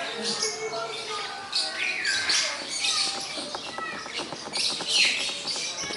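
A flock of Fischer's lovebirds chattering: many rapid, overlapping high-pitched chirps, with a louder burst of calls about five seconds in.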